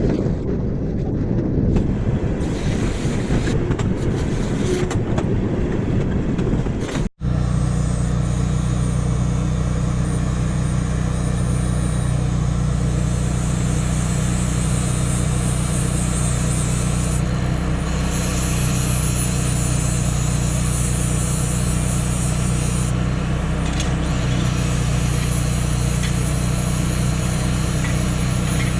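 Rough, uneven rumbling for about seven seconds, then, after a brief cut, an engine running steadily at constant speed.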